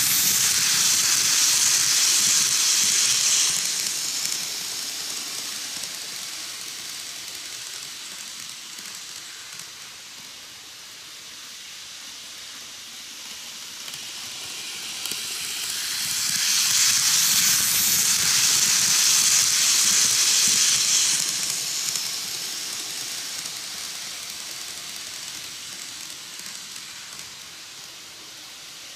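KATO N-gauge 185 series model electric train running round a loop of track. Its wheels and motor make a hissing rush that swells loud as it passes close, twice: at the start and again just past halfway, and fades in between as it runs farther off.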